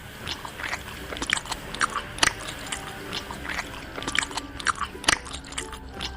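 Close-up chewing and biting of a burger: a string of short, crisp crunches and mouth clicks at an uneven pace, about two or three a second.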